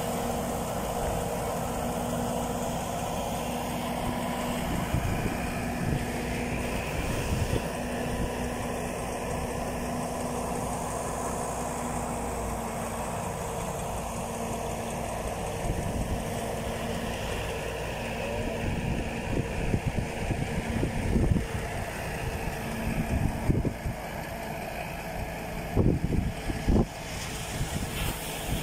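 An engine idling steadily with a faint hum, over the wash of surf. Wind buffets the microphone in several gusts over the last few seconds.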